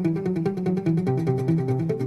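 Background music: quick, evenly picked guitar notes in a steady rhythm.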